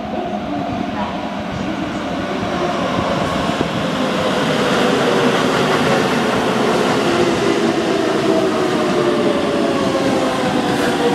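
Hokuso 9100 series electric train pulling into the station out of a tunnel, its wheels rumbling on the rails and growing louder. Several motor whine tones fall steadily in pitch as the train brakes and slows.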